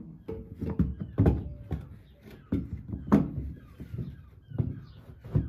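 Irregular knocks and clunks, about eight in five seconds, as a wooden block and clamps are handled and fitted against a bus's side skirt panel.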